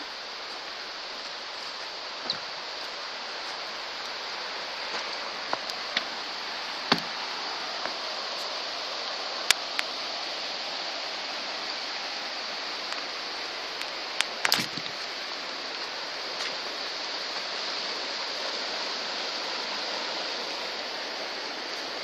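A river rushing steadily, with a few brief sharp clicks and knocks scattered through.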